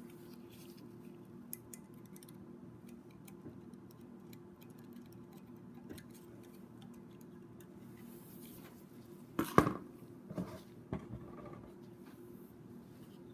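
Small metallic clicks and clinks of a valve spring compressor and valve keepers being fitted on a BMW N54 cylinder head, with a loud metal clack about nine and a half seconds in and two lighter knocks just after. A low steady hum runs underneath.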